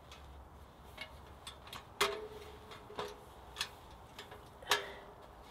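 Metal stove flue pipe sections clinking and knocking as they are fitted together through the tent's stove opening: about five sharp metallic taps, the loudest ones ringing briefly.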